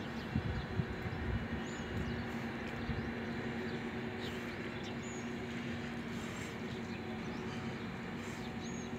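A steady low mechanical hum, with a few short, high bird chirps and a few low bumps in the first second or so.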